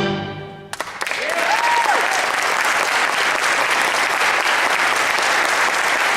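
A school concert band's final brass chord dies away, and about a second in the audience breaks into sustained applause. A short call from the crowd rises and falls in pitch as the clapping starts.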